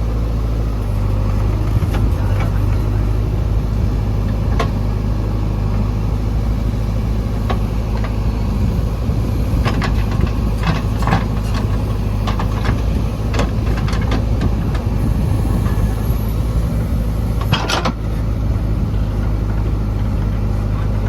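Diesel engine of a JCB 3DX backhoe loader running steadily under load while loading mud, with a scatter of sharp clanks and knocks about halfway through and a louder one near the end.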